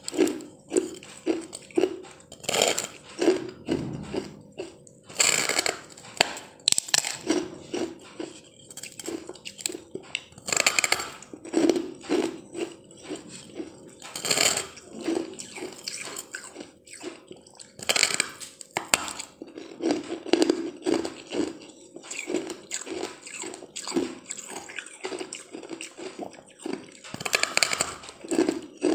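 Biting into a disc of frozen ice: loud crunches every few seconds, with crushed ice being chewed in a quick, steady rhythm in between.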